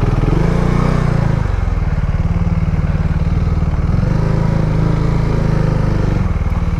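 KTM Duke 390's single-cylinder engine running at low revs while the bike is ridden off-road. Its note changes level a few times.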